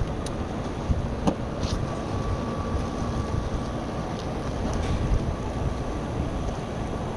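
Steady rumbling background noise with a faint steady hum, and a few light clicks in the first two seconds, as of a knife against the waffle and utensils.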